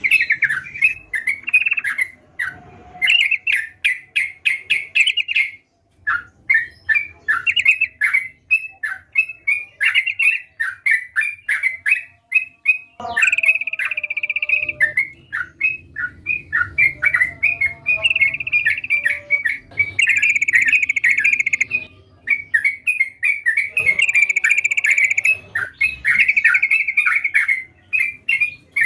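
Yellow-vented bulbul (trucukan) singing energetically: fast bubbling runs of short chirping notes, repeated phrase after phrase with only brief gaps, and a few longer held notes in between.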